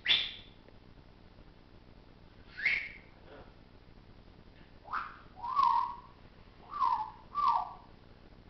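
African grey parrot whistling: about six short whistles that mostly slide downward in pitch, the first two high and the last four lower and in quicker succession from about five seconds in.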